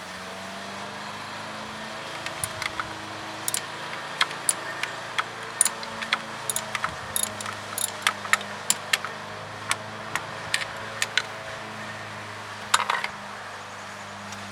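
Irregular sharp metallic clicks and clinks of hand tools and small parts being handled, with a quick cluster of clinks near the end, over a steady low hum.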